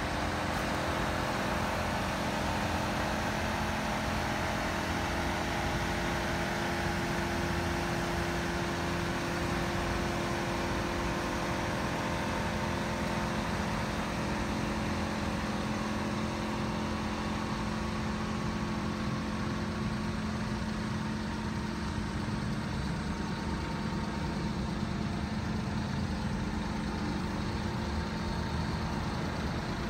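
Mitsubishi Minicab dump truck's small three-cylinder engine idling steadily.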